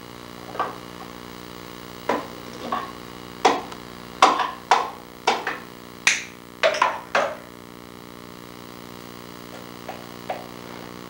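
Sharp wooden knocks and clicks, about a dozen over the first seven seconds and then only a couple of faint ones, as a ringneck parakeet works at the small drawers of a wooden chest with its beak.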